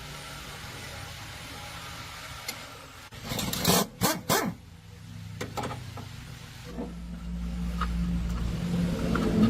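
A low steady mechanical hum with a cluster of loud, short bursts about three to four seconds in and a few sharp clicks after. A stronger hum comes in near the end and grows louder.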